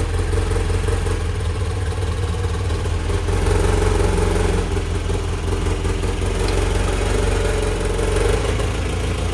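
Toyota truck engine idling steadily.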